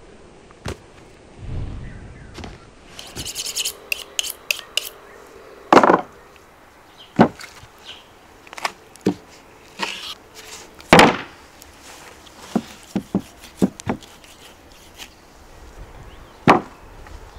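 A knife drawn quickly several times along a sharpening steel a few seconds in. After that comes a series of separate knocks and scrapes: raw leg bones set down and handled on a wooden table and cutting board, and a knife paring meat from the bone.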